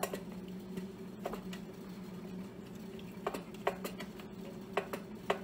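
Soft panela cheese being rubbed by hand down a stainless steel box grater into a glass bowl: a faint, soft rasping, with a handful of short sharp clicks. A steady low hum runs underneath.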